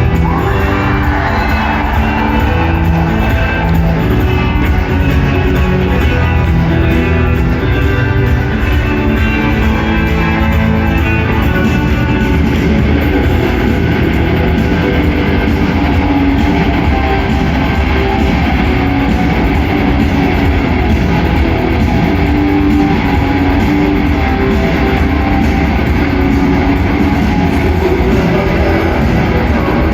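A rock band playing live, guitar-led with bass and drums, with no vocals yet. The music is loud and continuous.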